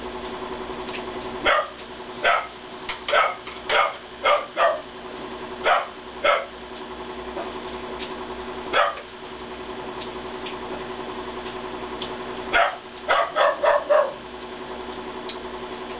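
A small dog barking repeatedly in short, sharp barks: a string of about seven in the first seven seconds, a single bark near nine seconds, then a quick run of five around thirteen seconds, over a steady hum.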